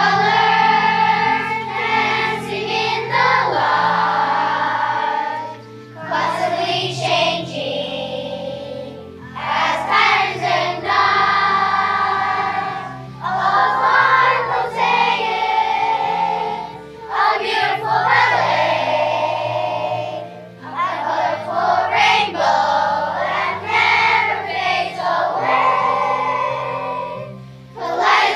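Children's choir singing a song in phrases of a few seconds each, with short breaks between them, over instrumental accompaniment.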